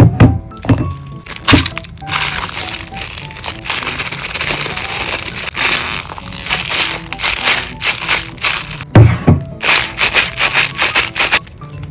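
Slime being pressed and poked by hand: sharp crackling and popping of air bubbles in the slime, with a dense crackle about two seconds in and a quick run of pops near the end, over light background music.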